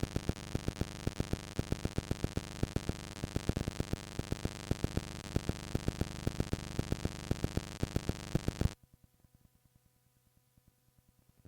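Cassette tape playback: steady tape hiss with a rapid, fairly regular run of clicks, about five a second, cutting off abruptly about nine seconds in to near silence.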